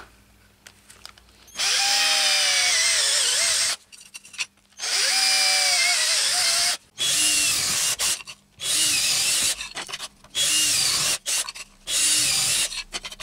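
Hand-held electric drill with a step drill bit boring through plastic tile-levelling wedges. After a short quiet start, it runs in five or six bursts of one to two seconds with brief pauses, its whine wavering and dropping as the bit bites into the plastic.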